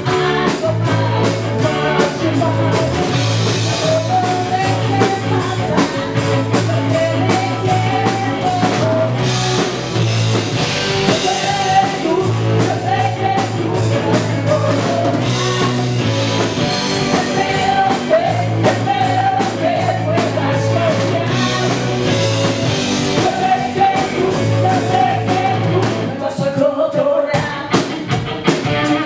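Live rock band playing: a singer sings over electric guitar, bass guitar and drum kit. The band thins out into a brief break near the end before the drums come back in.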